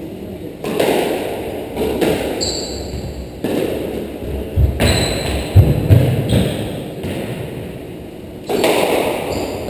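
Squash rally: the ball cracking off rackets and thudding against the court walls, a knock every second or two with a hollow ring after each, and a few short squeaks of shoes on the wooden floor.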